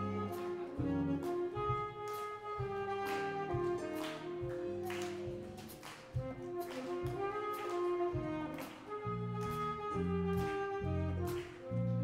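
Live band playing a tune: alto saxophone carrying the melody over electric bass, keyboard, guitar and a drum kit with regular drum and cymbal hits.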